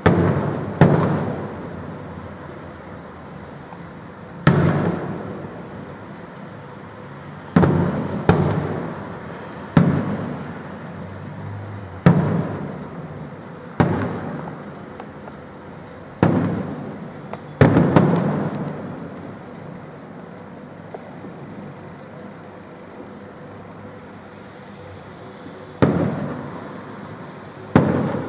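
Aerial firework shells bursting: about a dozen sharp bangs spaced one to four seconds apart, each trailing off into a rolling echo. There is a lull of several seconds before two more bangs near the end.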